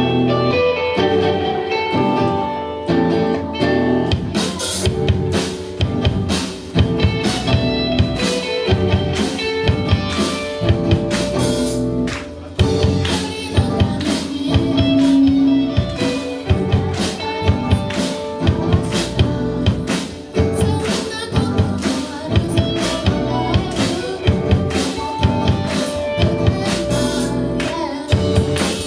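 Live rock band with electric guitars and singing, heard through the room of a small club. The drum kit comes in about four seconds in and keeps a steady beat.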